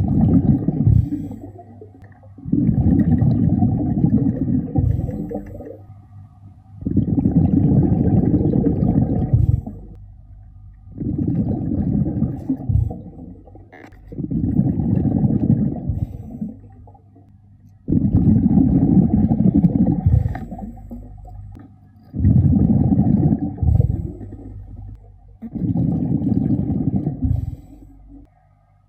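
Scuba diver's exhaled bubbles rushing and gurgling underwater, in muffled bursts of two to three seconds that come back about every three to four seconds with each breath.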